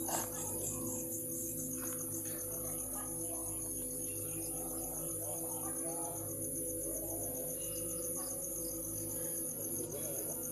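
Night insect chorus of crickets chirping steadily in a fast, even pulse, over a steady low hum.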